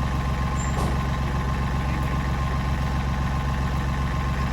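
UTV engine idling steadily, with an even low hum and a fine regular pulse.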